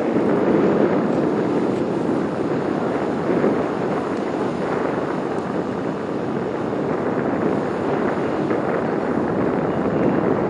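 Steady wind buffeting the microphone, mixed with the low running rumble of a car ferry's engine.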